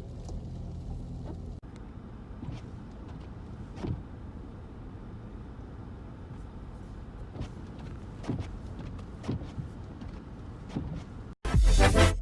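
Steady low rumble of a car in motion heard from inside the cabin, with a few light clicks scattered through it. It cuts off about eleven seconds in, and loud electronic music starts.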